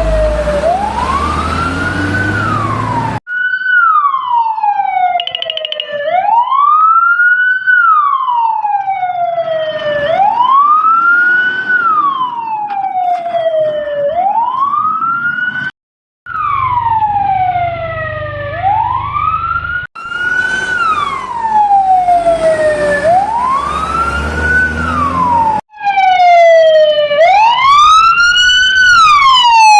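Fire truck siren wailing, its pitch falling and rising about once every three to four seconds, with a brief fast warble about five seconds in. It breaks off abruptly several times and starts again, louder near the end, with a low engine rumble under some stretches.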